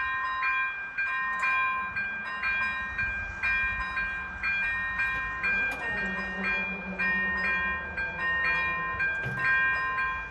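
Level crossing's electronic warning bell ringing in a repeating clear-toned pattern about once a second. From about five and a half seconds in, the barrier drives hum as the barriers lower, ending with a thump about nine seconds in.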